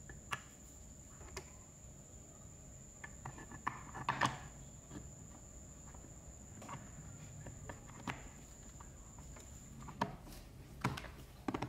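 Scattered light clicks and taps of an aluminium gear-case cover being handled and seated onto the plastic housing of a Makita MUC400 electric chainsaw, the loudest cluster about four seconds in.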